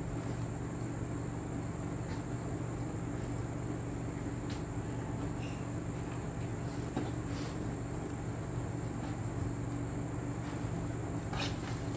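Steady low hum with a thin, unchanging high-pitched whine, and faint rustling of stiff fabric and crinoline being handled, with a slightly louder rustle near the end.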